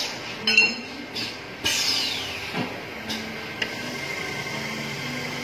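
Datyso 400B automatic-feed metal cutting saw working through a cycle. A run of metallic clanks and clicks from the clamping and feed comes first, the loudest about half a second in. From about three and a half seconds a steady high tone over a low hum sets in as the blade cuts under coolant.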